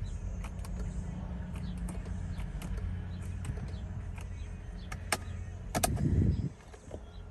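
Steady low hum inside a car, with scattered light clicks. Near the end there is a brief louder low rumble, and then the hum stops.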